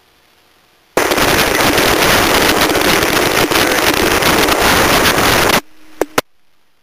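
Loud radio static: a two-way radio transmission opens with a burst of hiss about a second in and cuts off sharply after about four and a half seconds. A short low tone and two clicks follow as the transmission drops.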